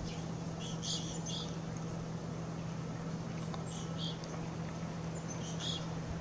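Black-capped chickadees giving short, high chirps in a few scattered bursts, over a steady low hum.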